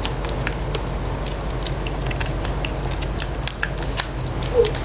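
Two cats eating from a plate, with irregular small wet chewing clicks over a steady low hum.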